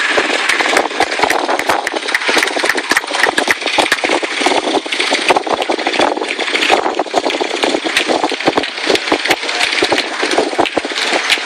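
Small engine of a quarter midget race car running as the car laps the oval, heard with a dense, irregular crackle.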